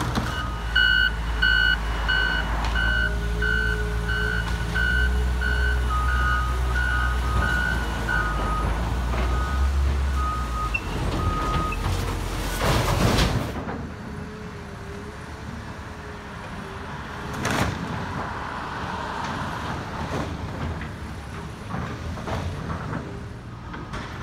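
Heavy construction machinery's diesel engines running with backup alarms beeping: a higher-pitched alarm repeating about every two-thirds of a second, then a second, lower-pitched alarm beeping more slowly. About halfway through the engines and beeping drop away to quieter outdoor sound.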